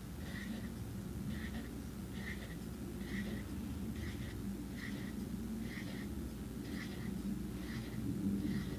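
Felt-tip marker drawing small spirals on paper: a soft squeak of the tip on the paper about once a second, over low background noise.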